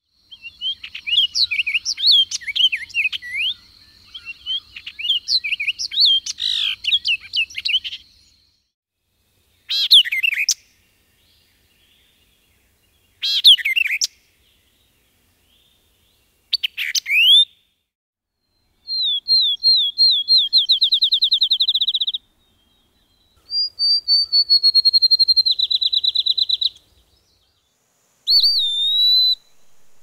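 Songbirds singing one after another. A male orchard oriole's rich, jumbled warbling song fills the first eight seconds over a steady high tone. Then come three short emphatic phrases of a white-eyed vireo, two fast trills and one brief slurred whistle near the end.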